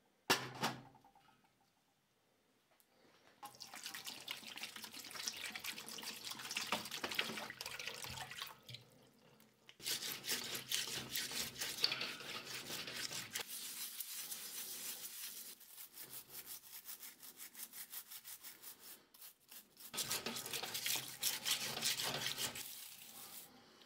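A single sharp knock just after the start, then a dish brush scrubbing verdigris-crusted brass candle holder parts under water in a stainless steel bowl. The scrubbing comes as long runs of quick rasping strokes with a few short pauses.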